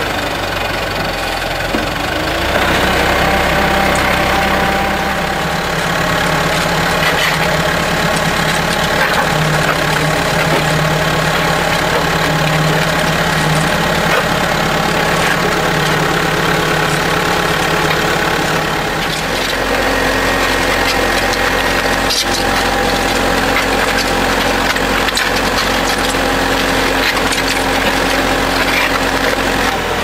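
Backhoe loader's diesel engine running steadily under load, driving the hydraulic concrete mixer bucket. It gets louder a couple of seconds in and its pitch shifts a little past halfway.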